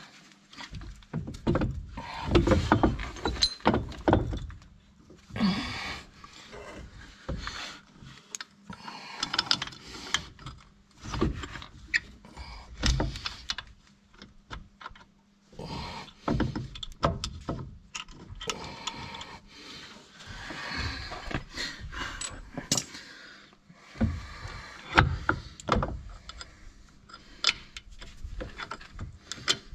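Hand tools and steel parts clanking and knocking during work on a van's front tie rod end: irregular knocks, clinks and rattles with short scraping spells.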